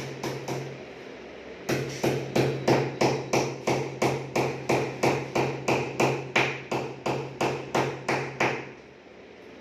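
Hammer tapping on the edge of a PVC wall panel: a few quick taps, a short pause, then a steady run of about three to four blows a second that stops shortly before the end.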